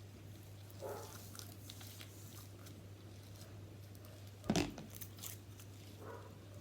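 Faint handling noises close to the microphone: light crinkling and tearing sounds, with one sharper knock about two-thirds of the way through, over a steady low hum.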